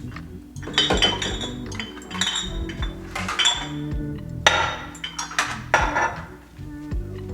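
Food containers and jars clinking against each other and against fridge shelves as they are handled, several sharp strikes with a short ring. Background music with steady bass notes plays underneath.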